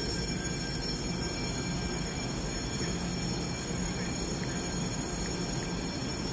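Taiwan Railways EMU900 electric commuter train drawing to a stop and standing at the platform: a steady rumble with a low hum and several thin, steady high tones.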